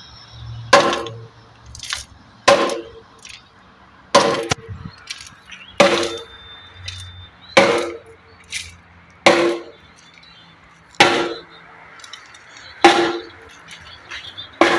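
Concrete pump running, giving a sharp metallic clank at each stroke, about every 1.7 seconds, each clank ringing briefly.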